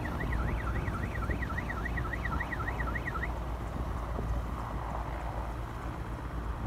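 Emergency vehicle siren in a fast up-and-down yelp, about three cycles a second, cutting off about three seconds in, over a steady low rumble.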